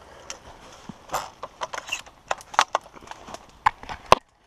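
Footsteps crunching through dry fallen leaves: a run of quick, irregular steps, with a couple of sharper knocks near the end.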